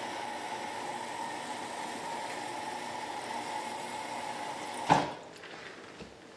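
Refrigerator-door water dispenser running water into a plastic water bottle, a steady rush of water. It cuts off with a clunk about five seconds in.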